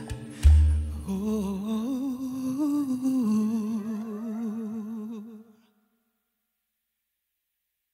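Closing bars of a church Christmas song: a solo voice humming a slow, wavering melody with vibrato over a deep bass note struck about half a second in. The sound then fades out.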